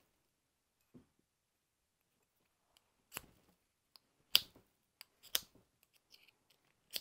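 Ferro rod flint striker being struck with its steel scraper: several short, sharp scrapes about a second apart, the loudest about halfway through, as sparks are thrown off the rod.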